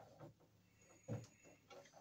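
Faint, short taps and clicks of hand tools working at the wiring inside a breaker panel, the clearest about a second in; otherwise near silence.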